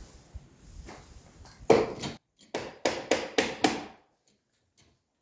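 Hammer blows on wood: about six sharp strikes in quick succession, the first the loudest, then they stop.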